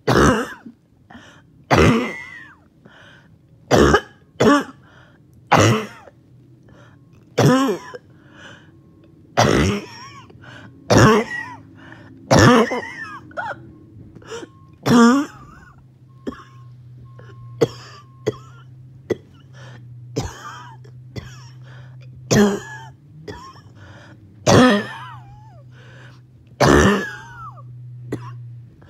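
A person's harsh, choking cough after exercise, coughing over and over with a loud cough about every one to two seconds, some ending in a short rasping catch in the throat.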